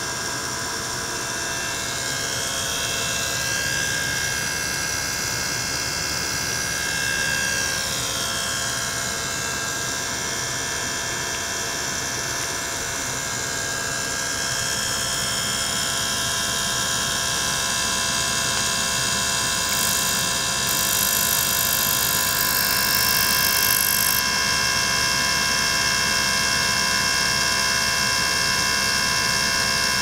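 Small electric pump running steadily, circulating water and air through a tank that holds an ultrasonic transducer: a continuous mechanical hum with several steady whining tones above it. For the first several seconds some tones glide up and down, and a higher hiss comes in for a few seconds around twenty seconds in.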